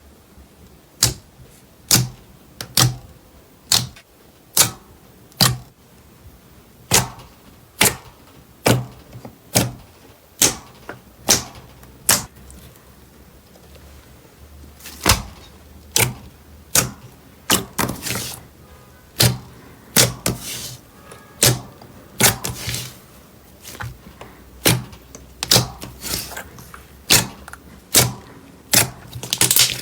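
Slime being pressed and poked by hand. Each press gives a sharp sticky pop or click, about one a second, with a short pause about halfway through.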